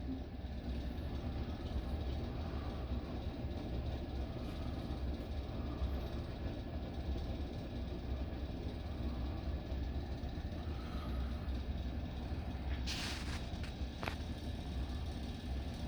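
Ceiling fans running at low speed, a steady low hum with air noise. A brief hiss comes near the end, and a light click about a second after it.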